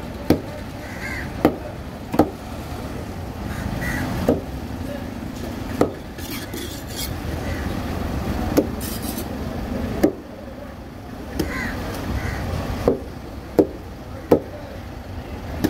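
Heavy curved knife chopping a trevally into steaks on a wooden block. About ten separate sharp chops come a second or two apart, over steady background noise.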